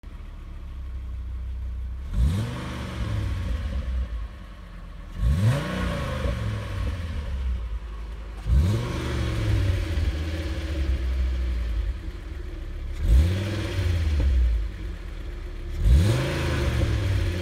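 Seat Toledo's 2.3-litre V5 engine (AGZ) with its stock exhaust, idling and revved five times, each rev climbing quickly in pitch and dropping back to idle.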